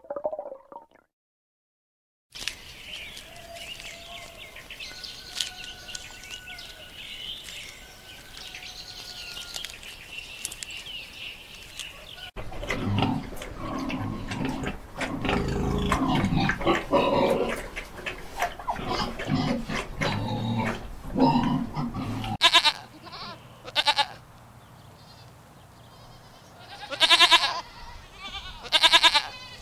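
Pigs grunting and squealing for about ten seconds, followed by goats bleating in about four loud, separate calls. Before them there is only a faint background noise.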